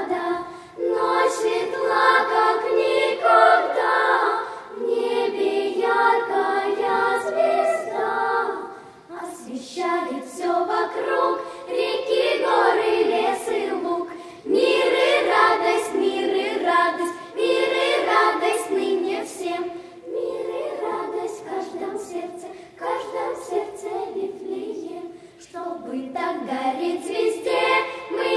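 Children's choir singing a Christmas carol in Russian, in phrases broken by short pauses for breath.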